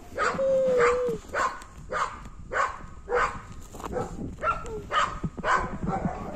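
Footsteps crunching on gravel, about two steps a second. A short, slightly wavering whine is heard about half a second in.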